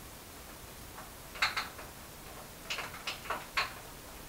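EK 530 drag-race roller chain being worked around its sprockets by hand, its links clinking in light, irregular metallic clicks: a small cluster about a second and a half in and several more near the end.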